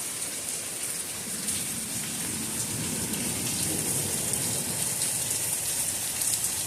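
Steady rain falling during a thunderstorm: an even hiss of downpour flecked with many small drop hits, growing slightly louder.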